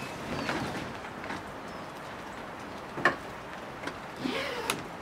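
Rapid 522 kayak being set down onto a wheeled kayak trolley. There is a sharp knock about three seconds in, a short creak a little after four seconds, and a click just before the end, over steady background noise.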